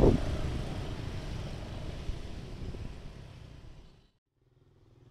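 Motorcycles and road traffic going over a railway level crossing: a loud, rumbling traffic noise that dies away steadily and cuts out about four seconds in, followed by a faint low hum.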